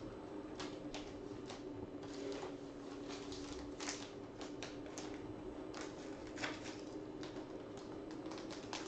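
Faint clicks and rustles of trading cards and a clear plastic sleeve being handled, scattered throughout, over a steady low hum.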